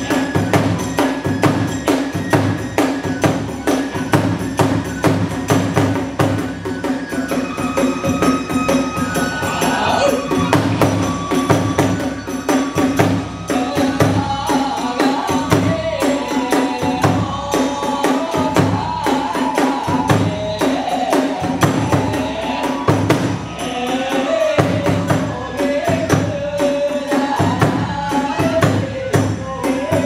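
Hiroshima kagura hayashi playing a fast, driving rhythm: a large drum beats steadily under a dense, even clatter of small hand cymbals (tebyōshi). About thirteen seconds in, a wavering melody joins, most likely the transverse flute.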